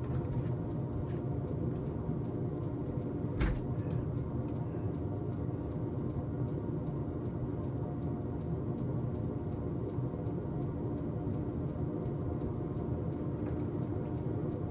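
Diesel air heater running steadily at power setting 3, its fan and burner giving a steady hum with faint regular ticks. A single sharp knock sounds about three and a half seconds in.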